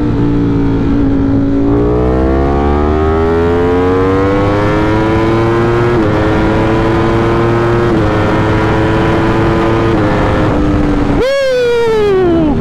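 Ducati Streetfighter V4's V4 engine under hard acceleration from third gear. The revs climb steadily and drop sharply at each upshift, about every two seconds, up to sixth gear. Near the end the throttle closes and the engine note falls away. Wind rushes over the microphone underneath.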